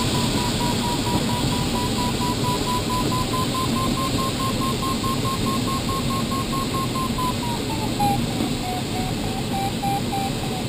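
A glider's audio variometer beeping in a fast string of short tones, steady in pitch and then dropping lower about seven seconds in, which signals a climb that is weakening. Behind it is a steady rush of airflow over the cockpit canopy.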